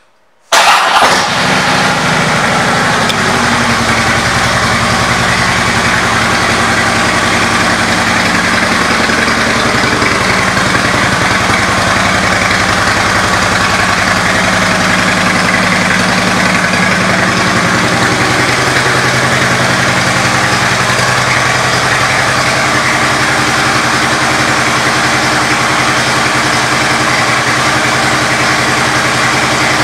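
2011 Harley-Davidson Ultra Classic's V-twin engine with aftermarket Python exhaust firing up about half a second in, with a brief louder burst, then settling into a steady idle.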